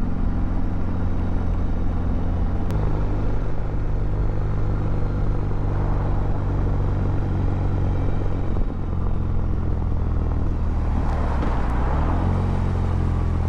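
BMW R18's big air/oil-cooled boxer twin running steadily under way, its note changing in sudden steps a few times.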